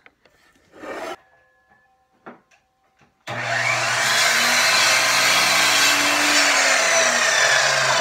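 Sliding compound miter saw running and cutting a board to length. It starts abruptly a little over three seconds in and runs loud and steady, with a faint tone that rises and falls as the blade works through the wood.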